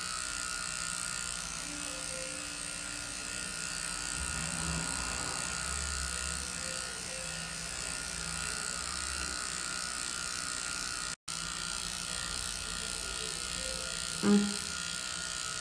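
Small motor of a handheld electric facial device pressed to the jaw, buzzing steadily. It drops out for an instant about eleven seconds in, and a brief voice sound comes near the end.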